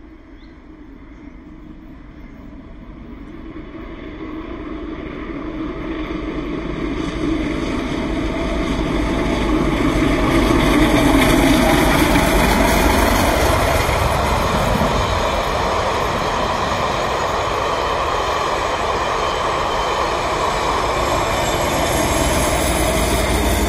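Royal Scot, an LMS Royal Scot class 4-6-0 steam locomotive, approaches and passes at speed. The sound of the engine working and of its wheels on the rails grows steadily louder to a peak about halfway through, then the train of coaches keeps rumbling past.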